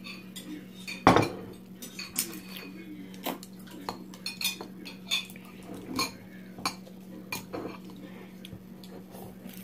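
A bowl set down on a wooden table with a loud knock about a second in, then chopsticks clicking and scraping against the inside of the bowl again and again as the last noodles are picked out.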